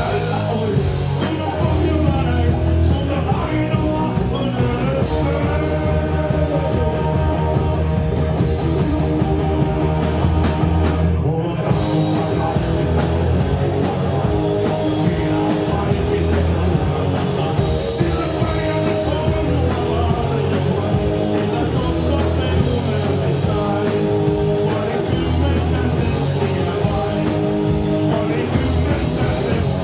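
Live rock band playing through the hall's PA, with a singer over guitars, bass and drums.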